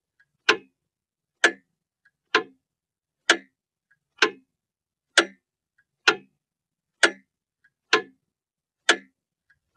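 Mechanical clock ticking, a sharp tick a little under once a second, with a faint extra click between every second pair of ticks.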